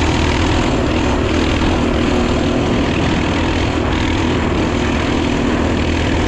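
Mini bike's small engine running steadily while under way, with no change in pitch or level.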